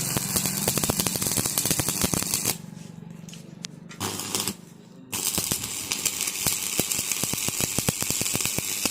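Electric arc welding: a crackling hiss full of rapid pops over a low electrical hum. The arc stops about two and a half seconds in, sputters briefly around four seconds, and runs again from about five seconds until just before the end.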